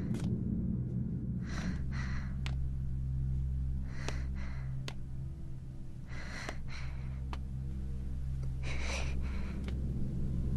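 A person breathing heavily in ragged paired breaths, about one pair every two seconds, over a low steady hum.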